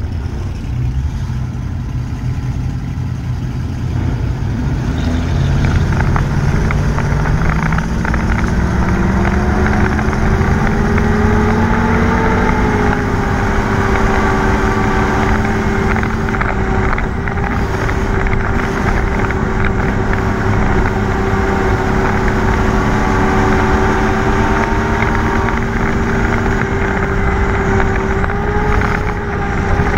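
Race car's engine heard from inside the car, revving up over the first several seconds, then held at high, fairly steady revs with slight dips, over constant rough running noise.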